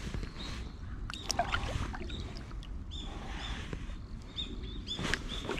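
A hooked common carp splashing and sloshing at the water's surface, with a few sharp clicks and knocks as a homemade wire hook releaser is worked down the line to free it.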